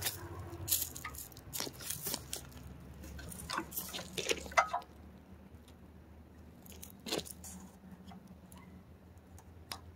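Footsteps crunching on loose gravel for the first few seconds, then a few light clicks and knocks of hands on a small engine's controls.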